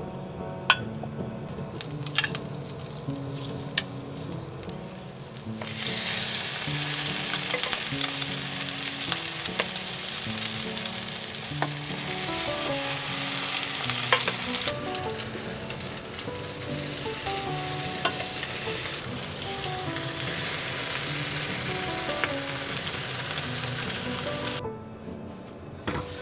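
Egg-soaked baguette slices sizzling in melted butter in a frying pan, a steady hiss that starts about six seconds in and cuts off suddenly near the end. A few light clicks come before it, and soft background music runs underneath.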